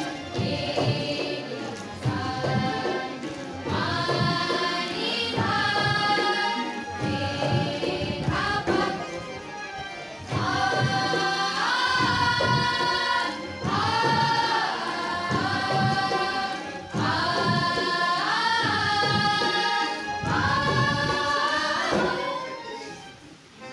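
A student choir singing a song in chorus, in phrases of long held notes, with musical accompaniment. The singing dies away near the end.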